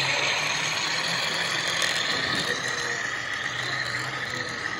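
HO scale model freight train rolling past close by, its metal wheels on the rails making a steady rolling hiss that slowly fades as the covered hopper cars go by behind the diesel locomotive.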